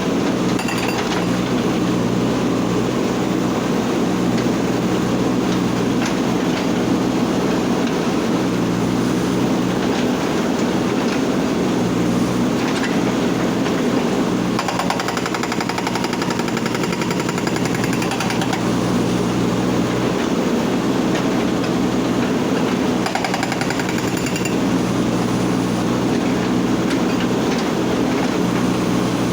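Backhoe loader's diesel engine running steadily under load while its hydraulic breaker hammers on stone in fast, rapid blows. The hammering is clearest in two stretches, one about halfway through and one a little later.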